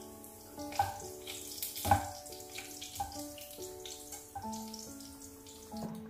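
Hot cooking oil sizzling in a frying pan as fried pieces are lifted out with a wire mesh strainer, with a few sharp clicks. Gentle instrumental background music plays throughout.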